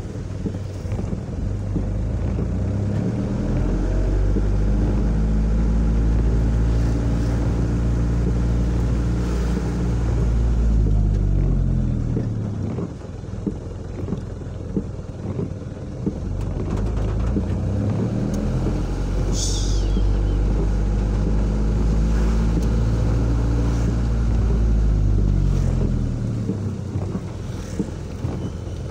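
Motorcycle engine on the move with wind on the microphone and tyres on a wet road. It pulls up to speed, holds, and eases off about halfway through, then does the same again, easing off near the end.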